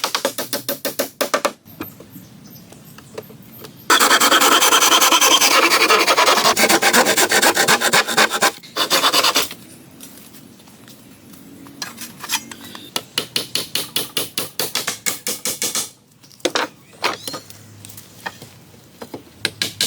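A hand tool scraping or rasping wood in quick, repeated strokes. A longer run of dense, continuous scraping lasts from about four seconds in to about eight and a half, with short pauses and a few separate knocks later on.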